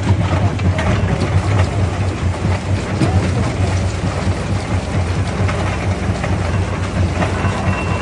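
A primary jaw crusher running with a steady low rumble, with many short knocks and cracks of stone being broken.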